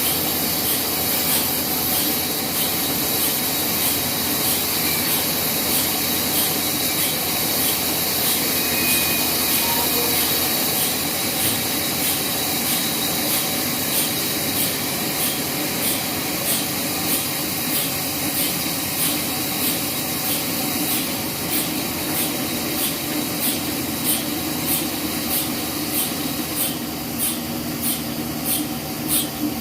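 Band sawmill running and cutting through a log: a steady machine noise, with a faint high tick repeating about once a second.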